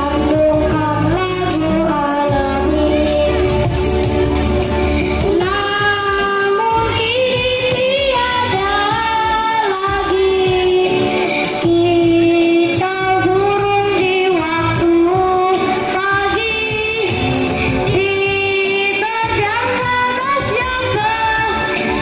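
A pop-style song sung by young female voices in unison over an amplified backing track, the bass heaviest in the first few seconds.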